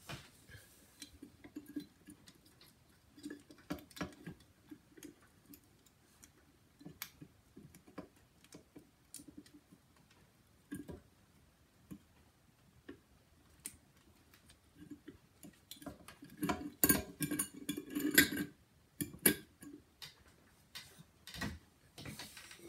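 Irregular light clicks and taps of hard parts being handled, with a denser run of louder clattering about three quarters of the way through.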